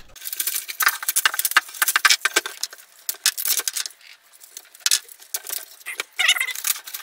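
Utility knife cutting through stiff PLA filament strands, giving rapid, irregular snaps and clicks as the plastic strands break loose and rattle against each other.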